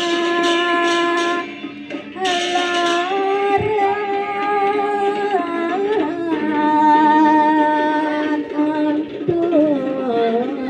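A single voice singing a slow chant in long held notes that slide between pitches, with short breaks about two and six seconds in.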